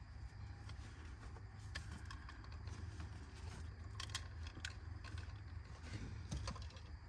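Scattered light clicks and small rattles of things being handled in a truck's back seat, a cluster of them about four seconds in and a sharper click near the end, over a steady low rumble.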